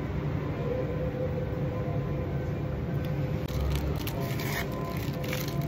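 A small plastic packet crinkling as it is handled and torn open, starting about halfway through, over a steady low hum.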